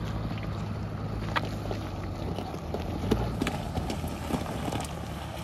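River cobbles crunching and clacking, with scattered sharp knocks, as weight rolls or steps over the loose stones, over a steady low hum.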